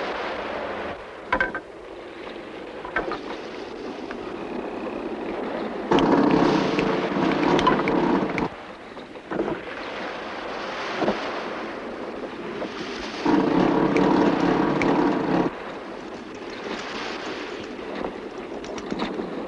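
Sea and wind on a sailing ship under way: a steady rush of wind and water, with two louder surges of washing water lasting a couple of seconds each, about six and thirteen seconds in.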